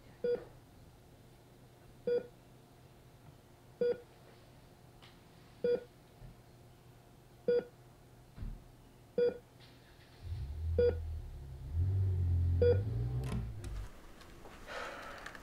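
A short electronic beep repeating steadily about every two seconds, eight times. A deep low drone swells in about ten seconds in and stops shortly before the end.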